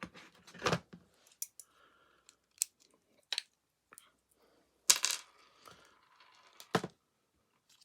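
Hard plastic clicks, knocks and clatter from the vacuum cleaner floor head's parts being handled and pried apart as the motor and belt are taken out. The loudest clatter comes about five seconds in, followed by a thud near the end.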